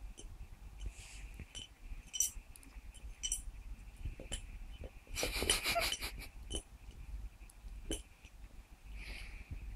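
Dog licking peanut butter out of a jar with its muzzle inside it: a string of irregular licking clicks, with a dense run of them about five seconds in.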